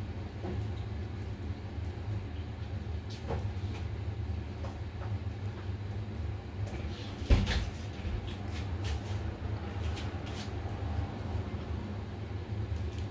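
Gas hob burner running steadily under a saucepan of water, a low even rumble with scattered light ticks. A single sharp knock sounds a little past the middle.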